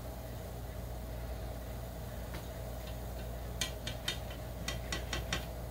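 Tongs clicking against the Ninja Foodi's air-fryer basket while turning scrapple fries: a run of about eight sharp clicks in the second half, over a steady low hum.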